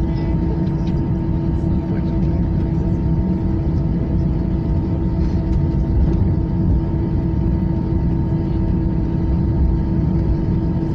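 Airliner engines running steadily, heard as cabin noise: a constant low rumble with a steady droning hum over it.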